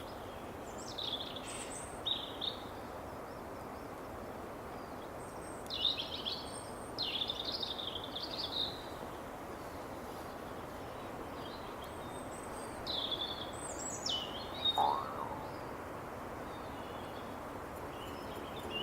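Wind in forest trees making a steady rushing sound, with small songbirds singing short chirping phrases every few seconds.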